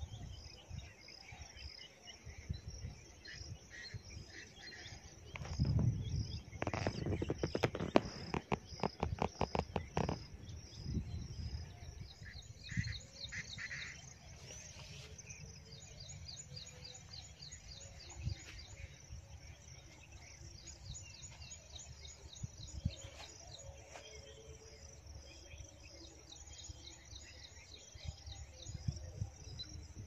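Insects chirping in a steady, evenly pulsing high trill, with a few short bird chirps. A loud run of rapid clicks comes about seven to ten seconds in, over a low rumble on the microphone.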